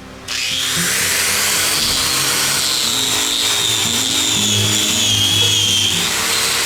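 A power tool starts up about a third of a second in and runs steadily with a high whine that sags slightly in pitch, over background music.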